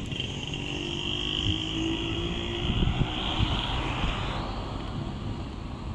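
2017 BMW R1200GS Adventure's 1170 cc boxer twin idling steadily through its stock exhaust silencer.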